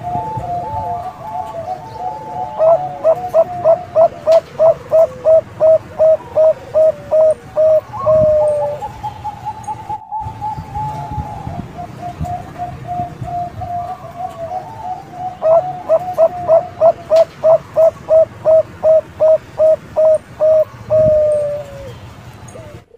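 Bangkok-type zebra dove (perkutut) cooing: two long phrases of rapid, evenly spaced staccato coos, each ending in a drawn-out note, with softer warbling coos in between. A brief dropout comes near the middle.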